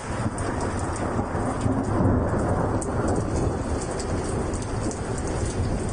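Thunder rumbling low through heavy rain, swelling about two seconds in, with scattered sharp ticks of raindrops striking close by.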